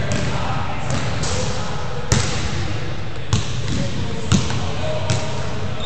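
A basketball bouncing on an indoor court floor: four separate sharp bounces about a second apart, the loudest about two seconds in, over steady background noise.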